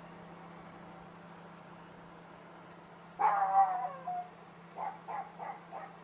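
Panasonic NN-ST557W inverter microwave oven running with a steady low hum while heating water, now working without its H97 error. About three seconds in, an animal gives a loud, drawn-out call that falls in pitch, followed by four short calls.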